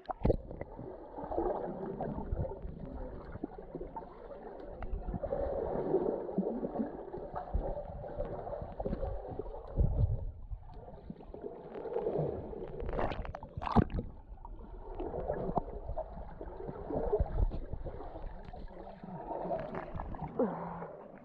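Muffled gurgling and sloshing of water around a GoPro action camera dunked at and under the surface of a cenote, with scattered knocks and a brief splash about two-thirds of the way through.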